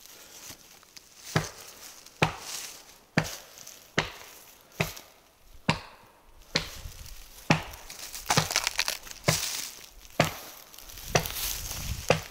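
Footsteps on a dry forest floor of twigs, moss and litter, one slow crunching step a little more than once a second.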